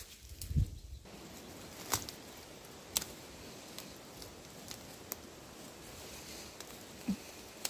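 Leafy branches rustling as young shoots are picked by hand, with several sharp snaps of stems breaking and a dull thump about half a second in.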